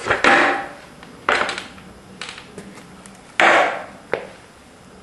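Skateboard clacking and knocking on a hard garage floor: four sharp hits, each trailing off briefly, the loudest about three and a half seconds in.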